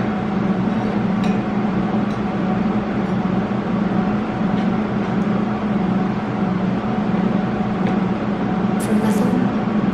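MIG welding set running with a steady low buzzing hum over a hiss, as a new neck bar on a motorcycle frame is about to be tacked in place.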